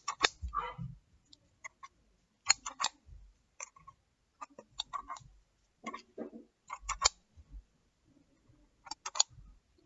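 Scattered sharp clicks in small clusters, with soft low bumps from close handling near the microphone.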